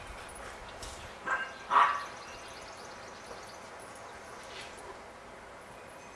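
Two quick play barks from a West Highland white terrier, about a second and a half in, the second louder.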